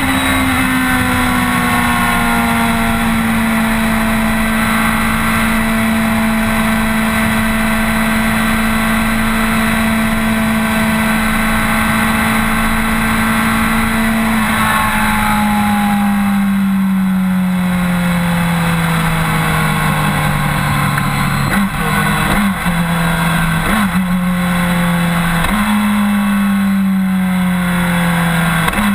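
BMW K1200R's inline-four engine running at a steady cruise, with wind rush. About halfway the throttle rolls off and the note falls, then jumps back up in pitch a few times in the last seconds as gears are shifted down while slowing.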